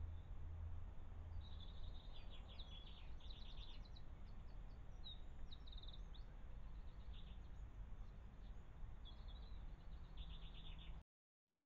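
Small songbirds singing in short snatches of quick high trills and chirps over the steady low hiss of a trail camera's microphone; the sound cuts out near the end.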